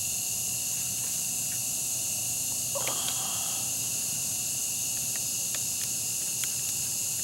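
Evening chorus of crickets and other insects, a steady high-pitched trilling, with a few faint clicks.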